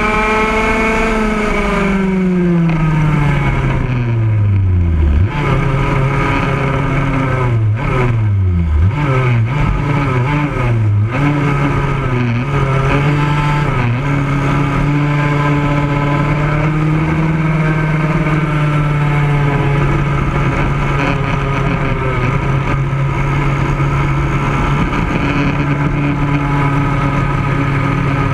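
Racing kart engine heard onboard: its pitch falls steadily over the first few seconds as the kart slows, dips and rises again several times, then holds steady at a constant engine speed.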